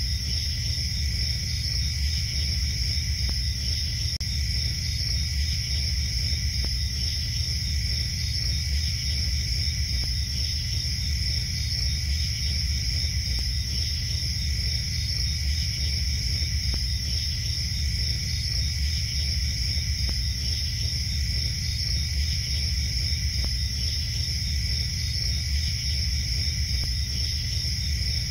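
Night-time ambience of crickets chirping steadily, with a steady low rumble underneath.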